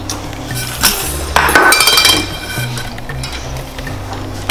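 A metal offset spatula scraping and clinking against the side of a round metal cake pan, with a louder, ringing metallic clatter about a second and a half in.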